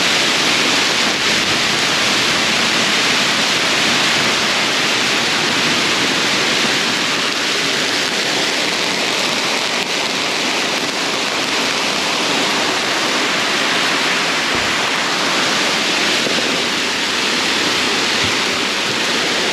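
Heavy hail pelting down: a dense, steady hiss of hailstones striking the boat and the ground.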